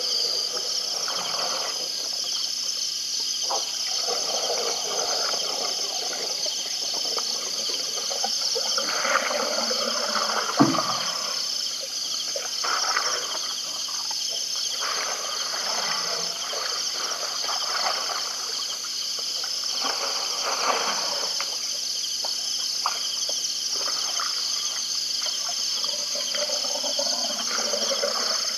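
Steady night-time insect chorus, a high shrill trilling that wavers slightly, over an irregular lower hiss, with one low thump about ten seconds in.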